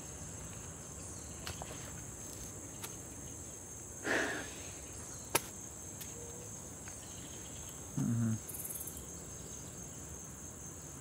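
Steady high-pitched chorus of insects, with a brief noise about four seconds in and a short low hum about eight seconds in.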